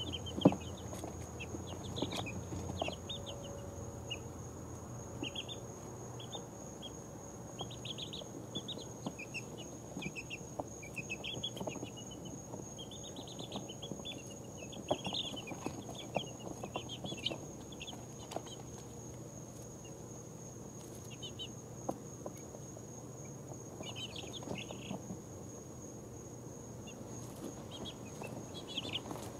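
A brood of two-week-old chicks peeping softly as they huddle and settle to sleep: short high chirps in scattered clusters, some quick runs of several together. A single sharp click about half a second in.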